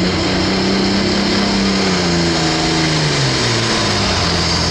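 Diesel engine of a John Deere pro farm pulling tractor running loudly at the starting line; its pitch slides down about two seconds in, then picks up again near the end as black smoke pours from the stack.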